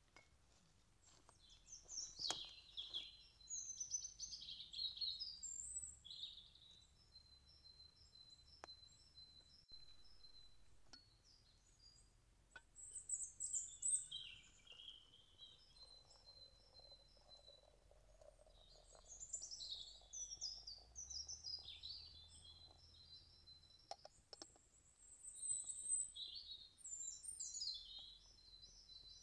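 Songbirds singing and chirping in short repeated phrases, over a thin, high, steadily repeated call. Midway, faintly, water pours from a cast-iron kettle into a glass teapot.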